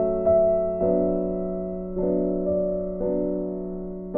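Background music: a soft keyboard playing slow, held chords, with a new chord struck about every second.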